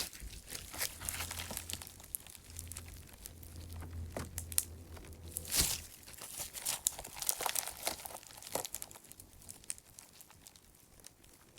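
Clear slime packed with small clay chips being squeezed and stretched by hand: the chips grind against each other with a crunchy crackle, mixed with small pops of trapped air bubbles. The clicks come irregularly and densely, with the sharpest snap about halfway through.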